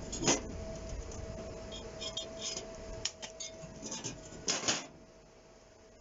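Stick welder's arc crackling and spitting briefly as a tack weld is run, stopping about three seconds in. Then a few metal clicks and one sharp clack as the electrode holder and rod are handled.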